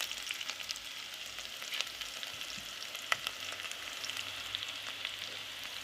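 Chicken feet frying in a pan: a steady sizzle with scattered crackles and pops.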